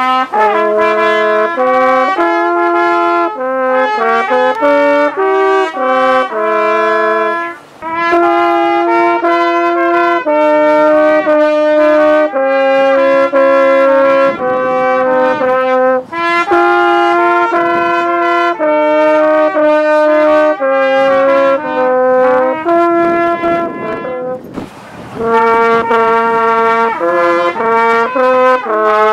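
French horn and trumpet playing a slow duet, two held notes at a time, in phrases with brief breaks between them.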